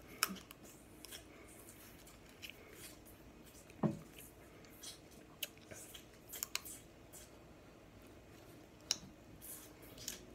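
Snow crab leg shell being bitten and picked apart at the mouth: scattered small crisp cracks and clicks at irregular intervals, the loudest about four seconds in.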